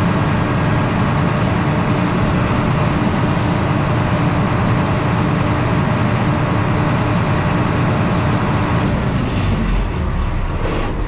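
A large vehicle engine running steadily and loudly. A steady tone in its hum stops about nine seconds in, and the noise eases off near the end.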